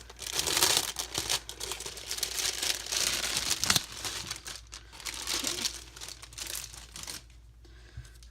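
Crinkling plastic wrapping around a new T-shirt, handled and pulled open, until about 7 seconds in, when it dies down.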